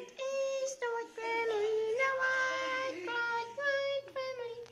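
A child singing a run of short held notes at nearly the same pitch, with brief breaks between them.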